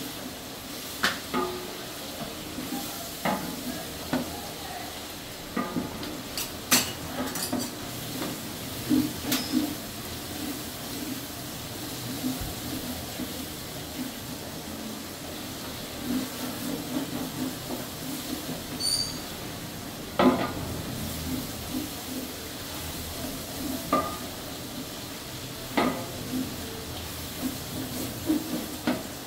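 Wooden spatula stirring and scraping frying ingredients and whole spices around a large aluminium pot, with irregular sharp knocks of the spatula against the pot's side over a steady sizzle of the oil.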